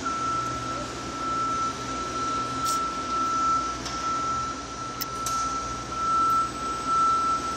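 Steady machinery hum and hiss, like ventilation fans or an electric motor running, with a constant high-pitched whine held on one note; a couple of faint ticks about three and five seconds in.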